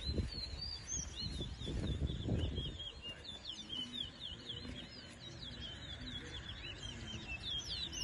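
Towa-towa (chestnut-bellied seed-finch) singing in a song race: a long, unbroken run of quick, high chirping notes.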